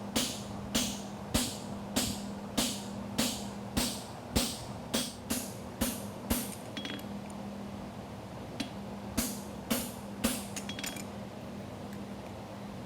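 Farrier's hammer striking a hot steel horseshoe on an anvil in a steady rhythm, nearly two blows a second, while the quarter of the shoe is shaped. After a short pause about seven seconds in comes a quicker run of lighter blows, over a steady low hum.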